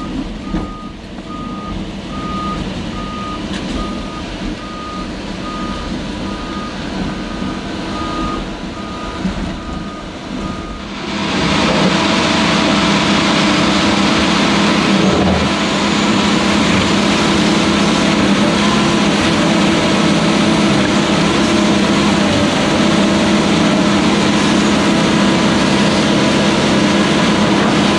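A back-up alarm beeps steadily over an excavator's diesel engine running. About eleven seconds in, the sound turns into the louder, close-up engine of a Hyundai tracked excavator working its bucket in the shallows.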